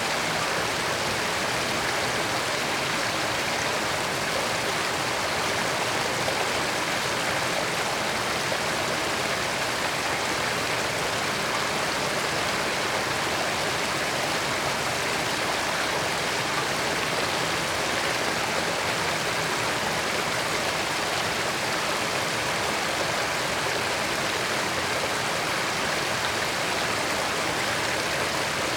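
Creek water running over rocks, a steady rushing babble.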